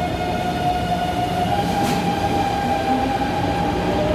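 Taipei Metro C321 train pulling out of an underground station: its traction motors whine in a steady tone that rises slightly about a second and a half in, over the rumble of steel wheels on rail, with a brief hiss about two seconds in.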